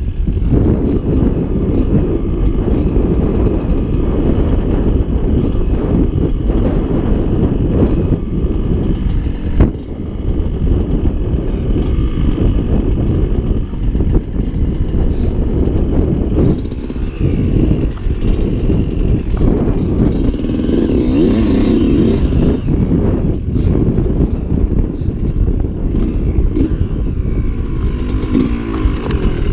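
Enduro dirt bike's engine running while it is ridden over rough moorland, heard under a heavy, steady low rumble.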